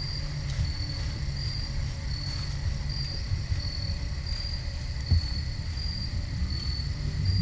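Crickets chirping steadily in an even, repeating rhythm, over a low rumble, with one sharp click about five seconds in.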